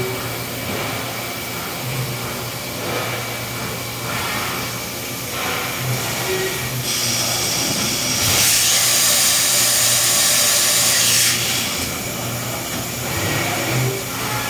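Makino A88 CNC horizontal machining center running its cycle, its spindle moving and changing tools, with a steady machine hum. A loud hiss starts about seven seconds in and lasts about four seconds.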